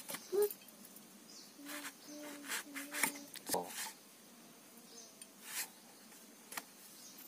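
Brinjal (eggplant) being sliced against an upright curved bonti blade: a series of crisp cuts at irregular intervals.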